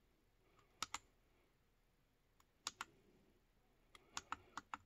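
Buttons on an electronic reloading scale being pressed: a pair of small clicks about a second in, another pair just before three seconds, then a quicker run of five or six clicks near the end.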